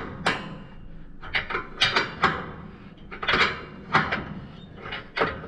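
Hand wrench turning a bolt in short strokes, metal clicking and scraping in quick clusters about once a second as the wrench swings and is reset: the bracket bolt on a no-till drill being tightened.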